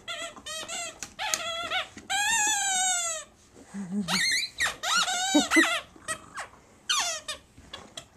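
Squeaky dog toy squeaked over and over by a corgi chewing it: a string of short, high squeaks, with one longer squeal of about a second starting about two seconds in.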